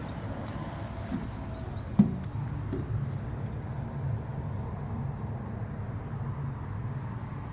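Steady low rumble of a standing tram, with a sharp knock about two seconds in and a few fainter knocks around it, as of footsteps and handling while someone climbs aboard into the driver's cab.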